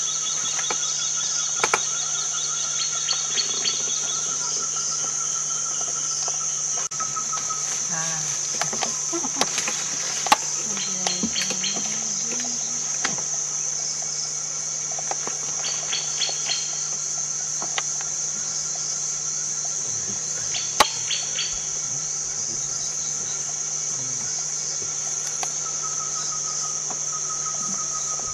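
Steady, high-pitched insect chorus, a continuous shrill drone, with a fainter pulsing trill beneath it. Scattered sharp clicks and knocks sound over it, the loudest about ten seconds in and again about twenty seconds in.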